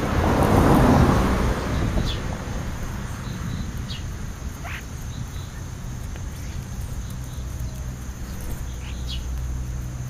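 A loud rushing noise for the first second or two, then a steady low rumble with a few short, high chirps from the European starlings and house sparrows feeding close to the microphone.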